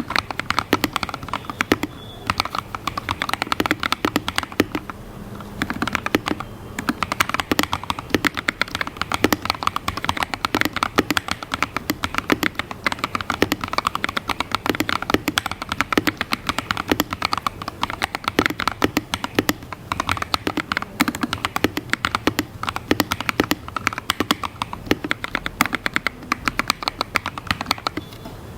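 Rapid, steady typing on a Redragon Fizz K617 mechanical keyboard fitted with lubed Akko CS Red linear switches and PBT XDA-profile keycaps. The board is tape-modded and foam-modded, and the keystrokes are a dense run of clicks with a couple of brief pauses in the first few seconds.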